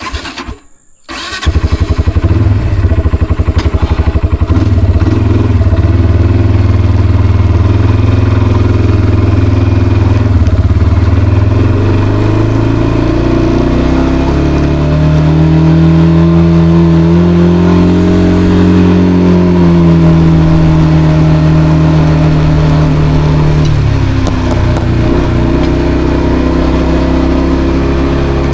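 Kawasaki Brute Force 300 ATV's single-cylinder engine starting about a second in and running. Its pitch climbs for several seconds past the middle, then drops back to a steady run near the end.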